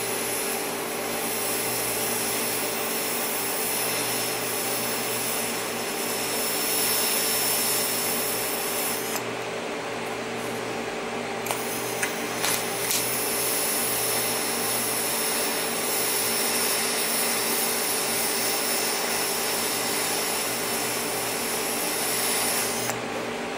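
Forge running steadily: a blower's motor hum under a broad hiss of air and flame, heating stainless steel. The high hiss drops away for a couple of seconds about nine seconds in, while the hum carries on.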